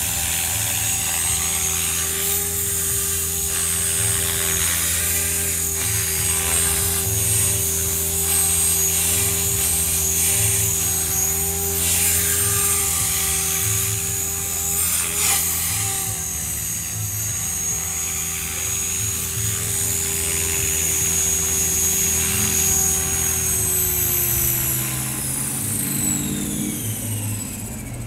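Align T-Rex 500 electric RC helicopter flying, its rotor and motor whine running steadily. From about four seconds before the end the pitch falls as the rotor spools down with the helicopter on the ground.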